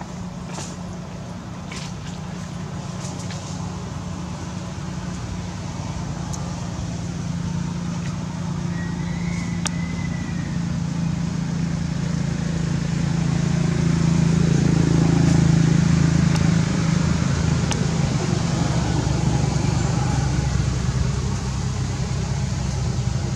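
A motor vehicle's engine running with a steady low hum, growing louder to a peak about two thirds of the way through and staying loud to the end.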